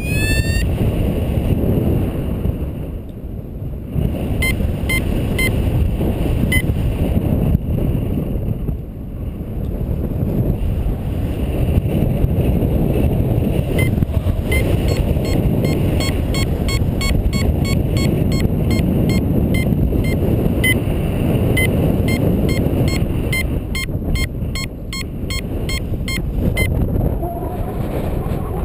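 Wind rushing over the microphone in paraglider flight, with a variometer beeping in short, evenly repeated high tones, the beeps coming faster for a couple of seconds near the end; repeated beeps like these signal that the glider is climbing in lift.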